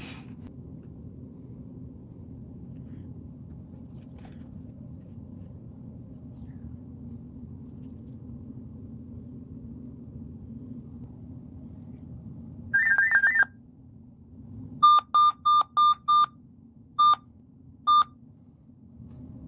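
Dell laptop's ePSA diagnostic error beeps: a quick warbling run of beeps, then seven short beeps at one pitch, sounded as the processor fan fails its test. Under them a low steady hum.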